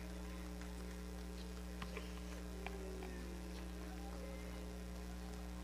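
Steady low electrical hum, with faint wavering voices beneath it and a few small clicks.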